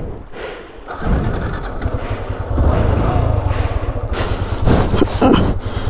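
Motorcycle engine running as the bike rides through shallow water over rocks. The engine comes in loud about a second in, with a few sharp knocks about five seconds in.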